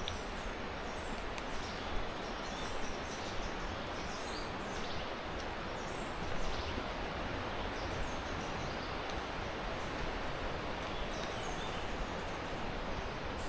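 Steady rushing of a river, with many short bird chirps and calls above it.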